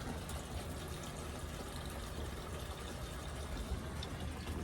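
Faint, steady background noise with a low rumble and no distinct event: yard ambience with no sound from the lizards.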